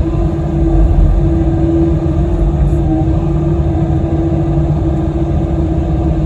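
Kobelco SK85 excavator's diesel engine running steadily while working, a low rumble with a steady hum above it.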